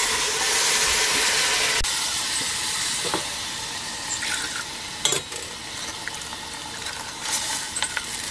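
Wet ground coconut masala paste (coconut, shallots, spices) sizzling as it is poured into a hot steel pot: a sudden loud hiss that slowly dies down. A few sharp clinks come as the steel mixer jar is emptied.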